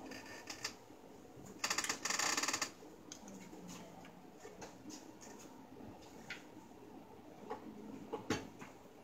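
Scattered small clicks and knocks of plastic and metal parts of a ring light and tripod stand being handled during assembly, with a loud rasping burst lasting about a second, starting about one and a half seconds in.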